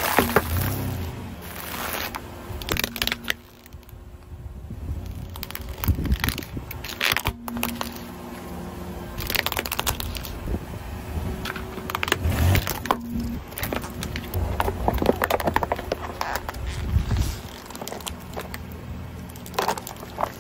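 A car tyre rolling over and crushing a series of objects on asphalt: repeated crackling and cracking as plastic packets split and rigid black plastic trays snap under the weight, with low rumble from the car between the crunches.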